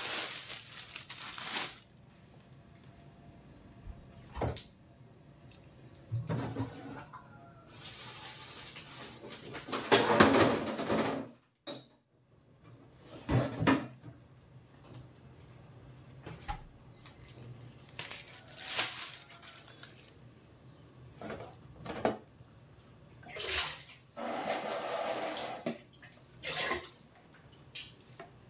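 Off-camera kitchen work: several bursts of running or splashing water, each lasting a second or more, mixed with the clatter of pots and dishes and a few sharp knocks.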